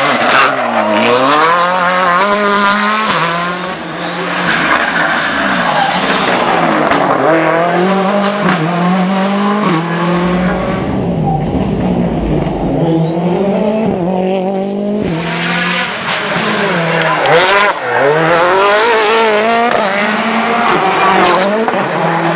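Rally car engine driven hard on a closed stage, its revs repeatedly climbing and dropping with gear changes and lifts off the throttle. For a few seconds in the middle the sound turns duller and lower before the revving rises again.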